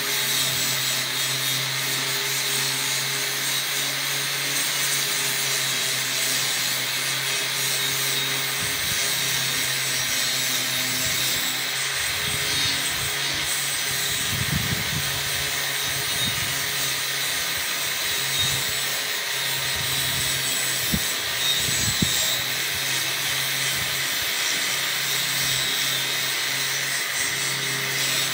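Angle grinder working rust off a steel pipe: a steady abrasive grinding hiss with the motor's hum underneath, the pitch and load shifting a little as the tool is moved along the pipe.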